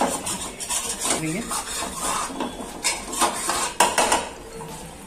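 Steel ladle scraping and clinking against a stainless steel pan, stirring flour in butter as it is roasted into a thickener for soup. Repeated scrapes and knocks, fewer and quieter near the end.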